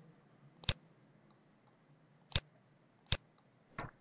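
Computer mouse button clicking four times, single sharp clicks about a second apart, each one placing a control point of a spline.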